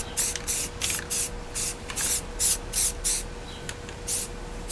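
Aerosol can of primer sealer spraying in short bursts, about two hisses a second, as a coat of primer goes onto a fibreglass motorcycle fairing.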